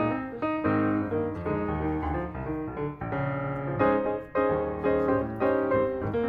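Background music: solo piano playing a gentle melody with chords.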